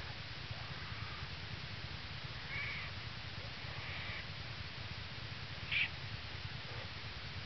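Black bear yearling's steady low purring, with four short, high squalls from newborn black bear cubs about a second apart to two seconds apart; the last, near the end, is the loudest.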